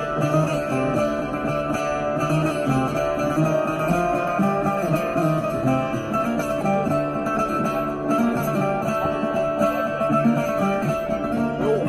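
A plucked string instrument played flat across the lap, playing a melody over a repeating bass line, with some sliding notes near the end.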